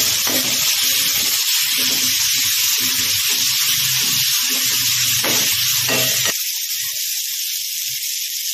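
Chopped chillies, carrot and tomato frying in hot oil in a wok, a steady sizzle, while a spatula stirs and knocks through them. The stirring stops a little after six seconds in and the sizzle carries on alone.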